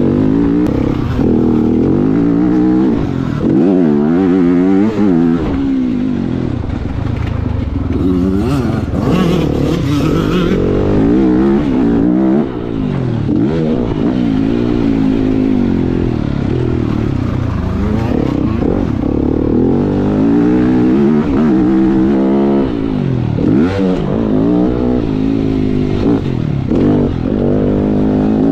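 Motocross bike engine being ridden hard around a dirt track, its pitch rising and falling over and over as the throttle opens and closes through the shifts and corners.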